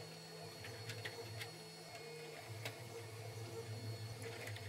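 Faint small clicks and taps of a plastic RC propeller being handled and fitted onto a brushless motor's shaft, a few scattered through, over a steady low hum.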